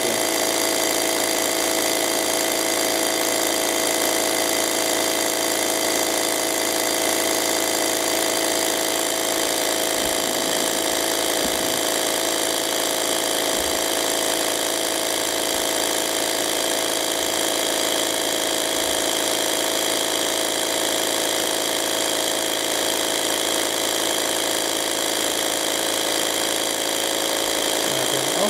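Rhombic-drive Stirling cryocooler running steadily, its built-in electric motor driving the piston mechanism with a continuous mechanical hum and whine made of several steady tones.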